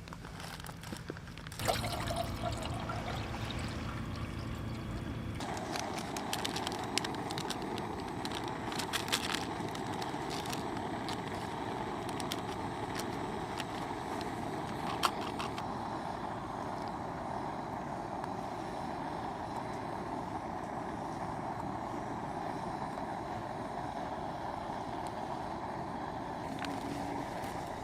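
Portable gas camping stove burner running with a steady hiss, starting about two seconds in and growing fuller a few seconds later, with small clinks of cookware over it.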